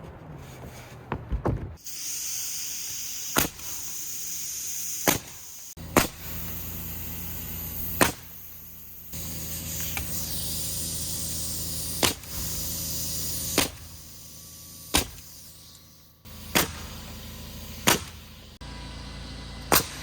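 Nails being driven into wooden roof purlins, most likely with a nail gun: about ten sharp single shots, one every second or two. A steady motor hum starts and stops between them.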